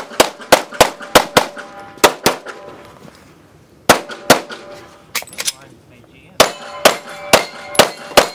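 Handgun fired in rapid strings of shots: three volleys of several shots each, separated by pauses of about a second and a half.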